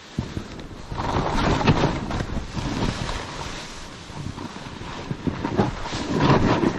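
Wind buffeting the microphone while ski or board edges scrape and hiss through tracked, chopped-up powder snow on a fast descent. The noise swells loudest about a second in and again near the end, with each turn.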